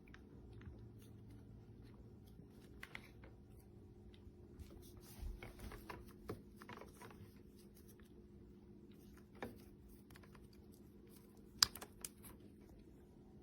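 Scattered light clicks and small knocks, irregular, with the sharpest pair of clicks near the end, over a faint steady electrical hum.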